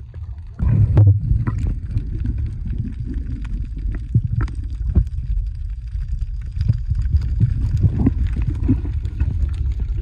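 Muffled underwater sound of water moving around a camera held by a diving snorkeler: a steady low rumble with scattered clicks and taps, louder about a second in.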